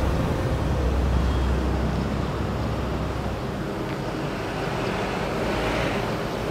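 Street traffic noise on a city road, with a steady low rumble that eases off about halfway through and a passing vehicle swelling near the end.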